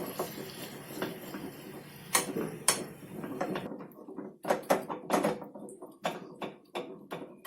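A spoon scraping and knocking against a small tadka pan as jaggery is stirred into hot ghee with ground ginger and spices. A faint sizzle fades over the first few seconds, then quick clicks and scrapes come thick from about three and a half seconds in.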